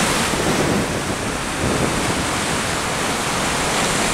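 Sea surf breaking and washing over rocks just below, a steady rushing of foaming water.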